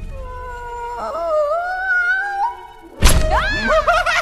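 Film-score music with held notes that slowly rise, then a sudden loud thud about three seconds in, followed by a quick run of rising-and-falling warbling tones.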